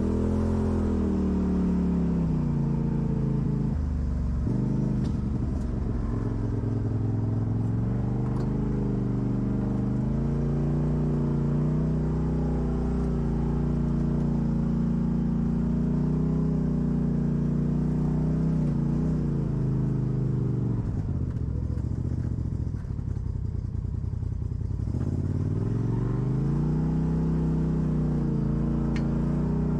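Off-road vehicle engine running under varying throttle, its pitch sliding down and up. About three-quarters of the way through it drops to a low, rough rumble for a few seconds, then revs back up.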